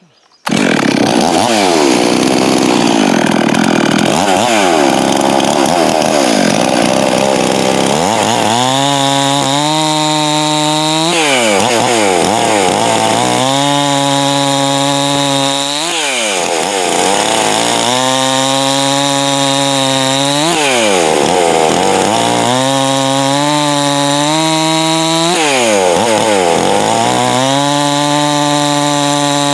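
Stihl MS 391 two-stroke chainsaw, its cylinder ported and piston bevelled, running hard through test cuts in wood. From about eight seconds in, the engine pitch repeatedly dips and recovers, roughly every two and a half seconds, as the chain loads in the cut and frees up again.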